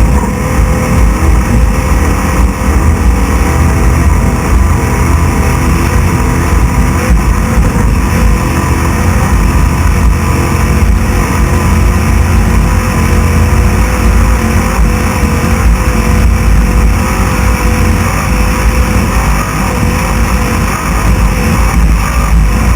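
Class 6100 off-road race truck at racing speed, heard from on board: the engine running hard under a dense, loud low noise that stays steady, with no letting-up.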